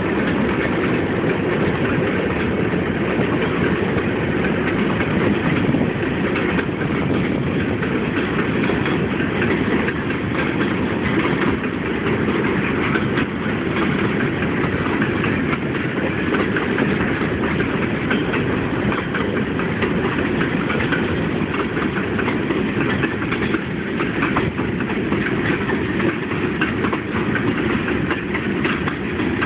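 Freight train cars rolling past: a steady rumble of steel wheels on rail.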